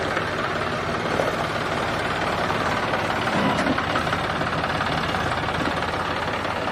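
John Deere tractor's diesel engine running steadily.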